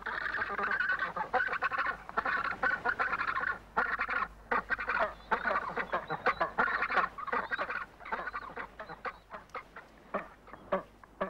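Fiordland crested penguins calling in a squabble among adult birds: harsh squawks overlapping densely for about the first seven seconds, then thinning to scattered short calls.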